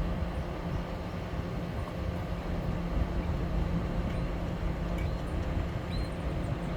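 Steady low rumble of a car being driven, engine and road noise heard from inside the vehicle.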